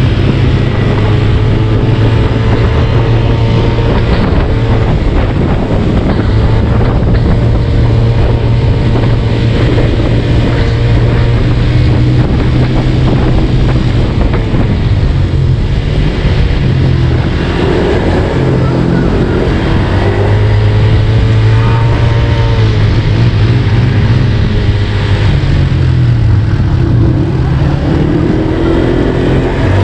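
Four-wheel ATV buggy's engine running while riding, its pitch rising and falling repeatedly with the throttle, with wind noise on the microphone.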